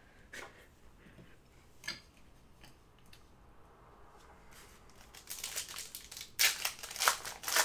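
A trading-card pack's foil wrapper crinkling and tearing open, starting about five seconds in after a few faint clicks.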